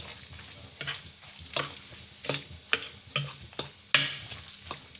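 A fork stirring a wet yogurt, spring onion and chilli mixture in a bowl, with short clicks and scrapes as the fork knocks the bowl, about two a second.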